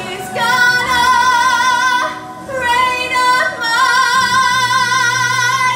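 A woman belting a Broadway show tune into a handheld microphone: two long held notes with wide vibrato, the second held about three seconds, with a short breath between them.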